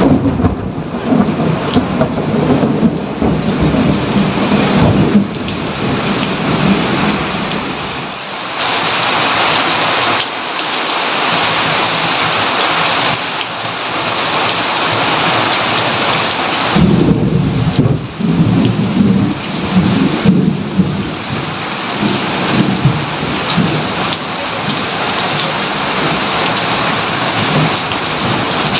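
Steady heavy rain falling on surfaces, with rolls of thunder rumbling over it at the start and again about halfway through.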